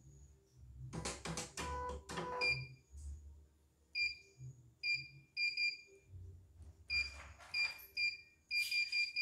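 Control-panel beeps of a CNY E900 portable embroidery machine as its keys are pressed: short high beeps, some single and some in quick runs of two to four. About a second in comes a quick run of sharp clicks and clatter, and more clatter comes with the beeps near the end.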